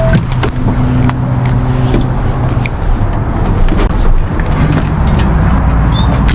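A diesel truck engine idling steadily, with scattered clicks and knocks over it.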